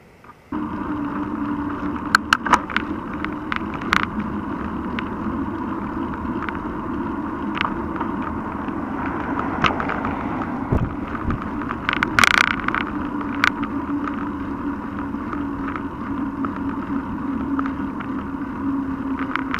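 Wind and road noise on a handlebar-mounted action camera on a mountain bike riding on pavement, with a steady low hum and scattered sharp clicks and rattles from bumps. It starts suddenly about half a second in, and there is a louder clatter about twelve seconds in.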